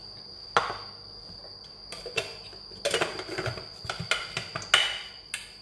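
Light clicks and knocks of kitchen containers being handled and set down around a blender jug: one sharp click about half a second in, then an irregular run of small knocks from about two seconds in.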